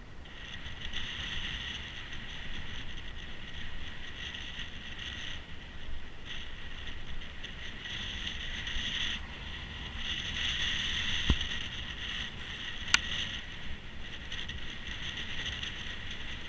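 Wind rumble on the microphone while riding, under a steady high buzzing that drops out twice briefly, with two sharp clicks a second and a half apart near the two-thirds mark.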